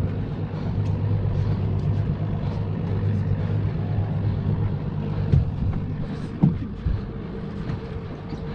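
Boat's outboard motor running steadily at low revs as a low hum, which fades about five seconds in. A few sharp knocks follow, the loudest a little after six seconds.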